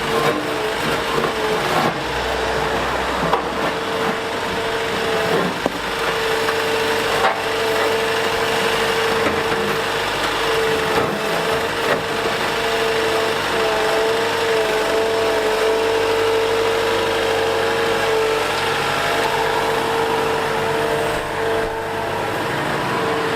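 Liebherr A 910 compact wheel excavator working, its engine running under load with a steady whine, while the bucket scrapes and breaks up asphalt with cracking and a few sharp knocks.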